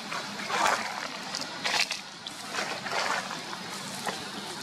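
Leaves and branches rustling and shaking as a monkey climbs through a tree, in several short bursts.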